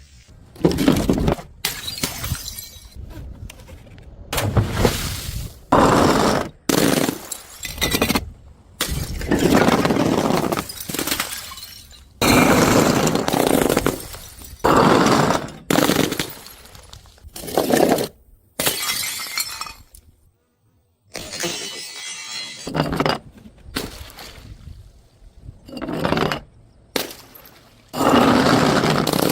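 Glass bottles smashing one after another: a long series of separate sudden crashes, each trailing off in a clatter of breaking glass.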